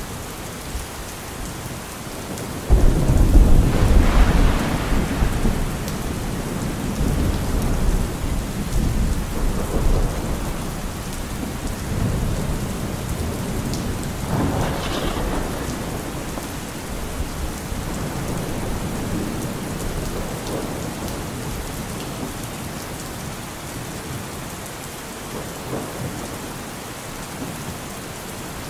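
Steady rain with thunder: a loud, deep rumble breaks about three seconds in and rolls on for several seconds, followed by fainter rumbles later.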